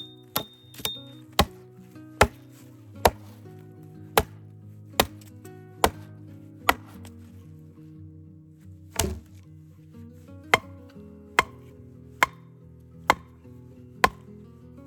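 Axe chopping wood: sharp, evenly paced blows about one a second, a short pause in the middle, then a duller thud and more blows. Background music with held low notes plays underneath.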